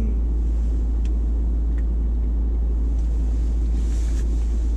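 Steady low rumble inside a van's cabin, with a few faint clicks and a soft thump right at the end.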